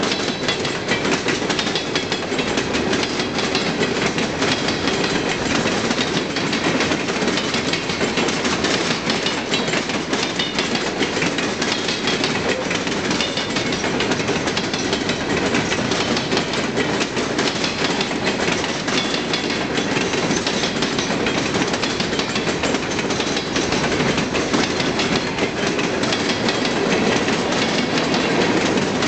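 A long string of empty open-top coal hopper cars rolling past at steady speed: a continuous clatter of steel wheels on rail and rattling car bodies, with many small clicks throughout.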